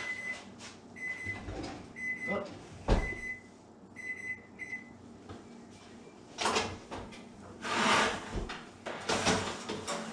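Electric oven's timer beeping in short high tones, stopping about five seconds in, with a sharp thump about three seconds in. Then the oven door is opened and a metal baking sheet is slid out off the rack.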